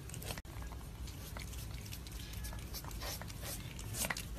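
A cat sniffing at food and pawing at its tray: soft scattered sniffs and light taps, the loudest a little after four seconds in.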